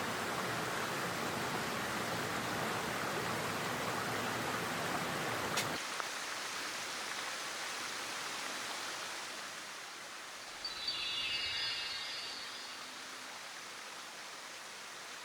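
Steady rush of a mountain headwater stream. The sound drops abruptly and becomes thinner about six seconds in, and a short high chirping call sounds near eleven seconds.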